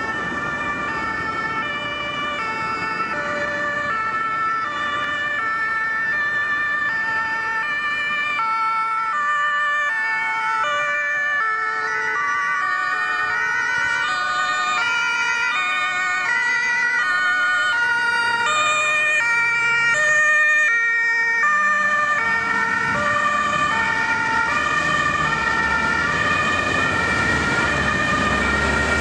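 German two-tone emergency sirens (Martinshorn) of ambulances and an emergency doctor's car responding. Several sirens sound at once, each alternating between a high and a low note and out of step with the others, with vehicle rumble growing near the end.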